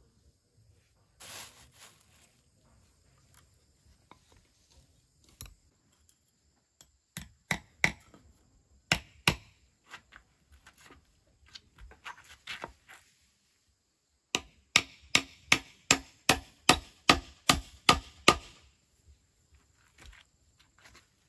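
Claw hammer striking, nailing wooden sticks onto a wooden post: a few separate blows, then a quick steady run of about a dozen blows, roughly three a second, past the middle.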